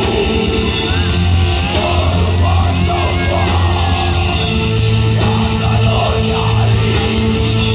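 Symphonic metal band playing loud and steady at a sound check: distorted electric guitars, bass and a drum kit, with a wavering melody line above them.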